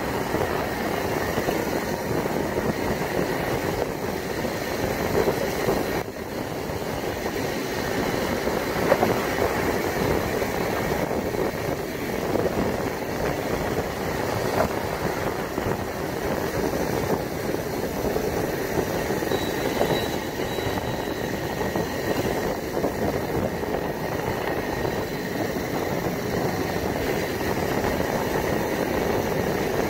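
Riding a motorcycle at speed: a steady rush of wind over the microphone mixed with the bike's engine and tyre noise.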